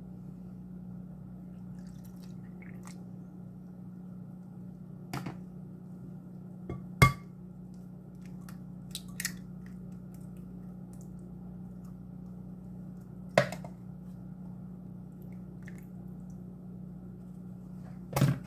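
Kitchen handling sounds while ingredients go into a glass mixing bowl: a handful of separate sharp taps and knocks, one of them the egg being cracked, over a steady low hum.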